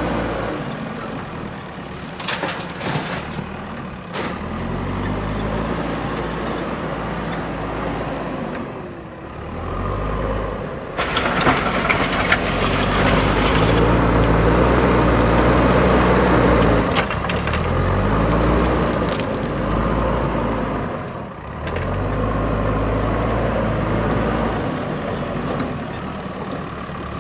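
A JCB backhoe loader's diesel engine works under load, its revs rising and falling again and again. A few sharp clicks come early on. A louder rough rushing noise runs for about five seconds in the middle.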